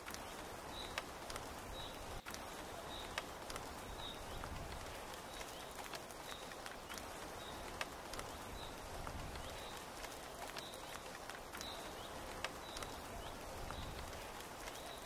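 Steady rain with scattered heavy drops tapping sharply, and a small animal's short high chirp repeating about once a second.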